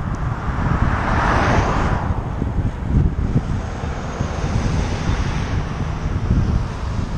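Wind buffeting the microphone of a bicycle-mounted camera, a steady low rumble. Over it, the tyre and engine noise of passing cars swells and fades: loudest between one and two seconds in, and again more weakly around five seconds in as an SUV overtakes the bike.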